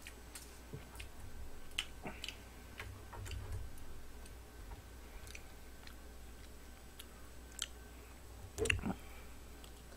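Quiet chewing, with scattered light clicks of wooden chopsticks against a frying pan and a plate, and one louder knock near the end.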